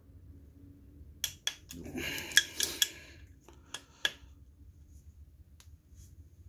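Metal clinks and clicks of a torque wrench and socket being fitted onto the clutch cover bolts of a motorcycle engine. A quick rattling run of clicks comes about two seconds in, then a few single clicks, and after that it goes quiet.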